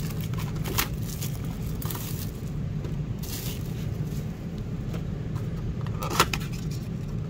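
Cardboard trading-card blaster box being handled and torn open: scattered scrapes and crackles, with a sharp click about six seconds in, over a steady low hum.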